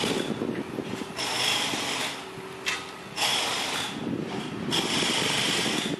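EP07 electric locomotive approaching on the line, a steady low rumble of the locomotive running on the rails, with a high hiss that swells and drops away about every second.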